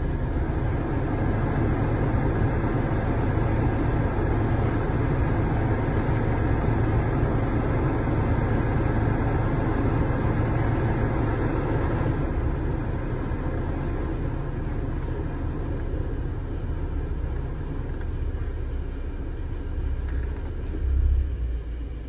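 Geely Panda's heater blower fan running, a steady rush of air from the dash vents, as the fan-speed knob is worked to test the repaired blower switch. The rush gets somewhat quieter after about twelve seconds, and there is a short low bump near the end.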